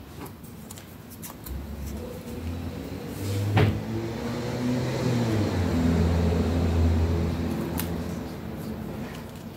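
Low hum of a motor vehicle engine that swells over a few seconds and then fades near the end, with a sharp click about three and a half seconds in.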